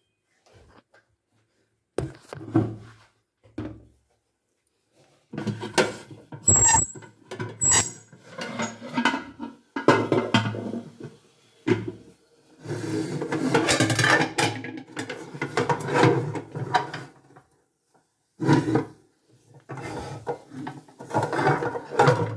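Aluminium cooking pots being shifted and scraped against one another and the shelf, in irregular bursts with a few sharp knocks.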